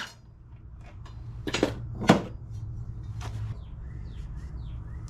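Metal knocks and clanks as a new blade is fitted to a lawn mower: two sharp knocks about a second and a half in, then a lighter one. In the second half comes a run of short squeaky chirps, about two a second.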